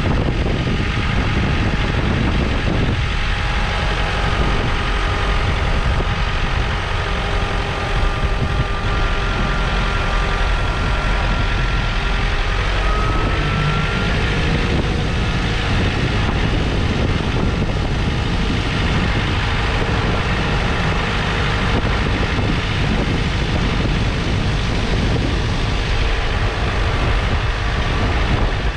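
John Deere 4066R compact tractor's three-cylinder diesel running steadily under way, with a faint whine. Heavy wind rumble on the roof-mounted camera.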